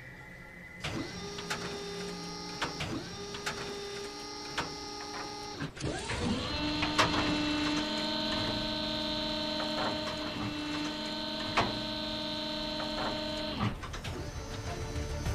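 A machine whirring with steady hum tones and scattered clicks. After a sharp knock about six seconds in, it runs at a different pitch and stops shortly before the end.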